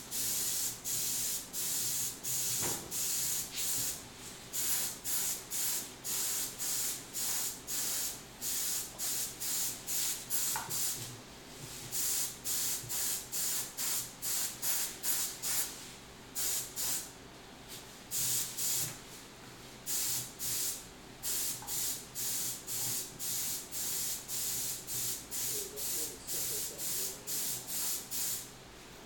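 Compressed-air paint spray gun with a gravity-feed cup hissing in short trigger bursts, about two a second, with a few brief pauses, as paint is laid down in short passes.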